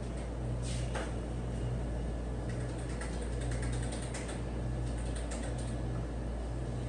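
Keys and controls on an ultrasound machine's console clicking irregularly as measurements are entered, over a steady low hum.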